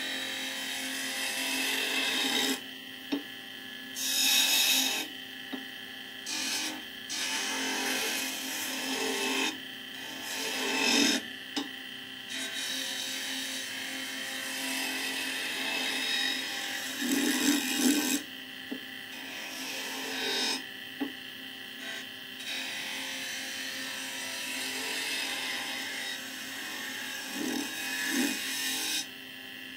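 Wood lathe turning a small wooden spindle while a flat steel scraper cuts it, giving a rasping scrape that comes and goes in passes a second or two long over the steady hum of the running lathe.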